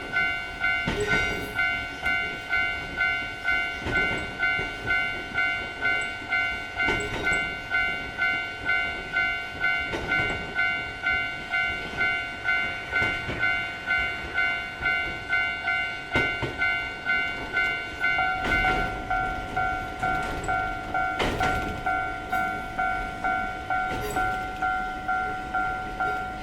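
Japanese railroad-crossing warning bell ringing its steady "kan-kan", an electronic bell tone striking evenly about twice a second. About eighteen seconds in the lowest note of the tone shifts slightly.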